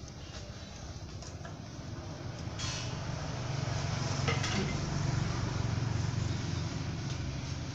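Low engine rumble of a vehicle, swelling up about two and a half seconds in and staying loud to the end, with a single sharp click about four seconds in.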